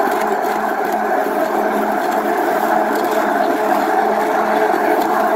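Electric stick blender running steadily, submerged in thick cold-process soap batter and mixing in mica colourant.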